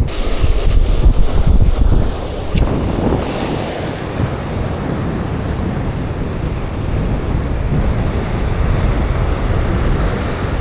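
Wind buffeting the microphone over the wash of the sea, a loud, uneven low rumble, with a few light clicks in the first few seconds.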